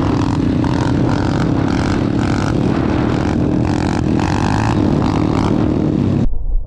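Pit bike single-cylinder engines running at steady high revs, with wind noise over the microphone of the following bike. The sound cuts off abruptly near the end.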